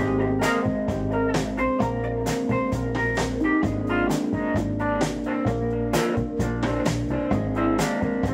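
Live rock band playing an instrumental passage: a semi-hollow electric guitar picking chords over a drum kit that keeps a steady beat, with about two sharp drum and cymbal hits a second.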